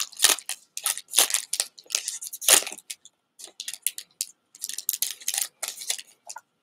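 Foil wrapper of a Pokémon TCG booster pack being torn open and crinkled as the cards are pulled out: an uneven run of sharp crackling rustles, the loudest about two and a half seconds in.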